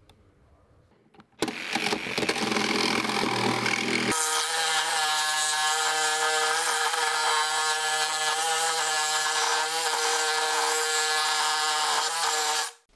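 Cordless reciprocating saw with a bi-metal blade cutting through the hardened strip steel of a catalytic-converter strap on an exhaust pipe. It starts abruptly about a second and a half in. About four seconds in it turns into a steady, high-pitched metal-cutting whine, which cuts off just before the end.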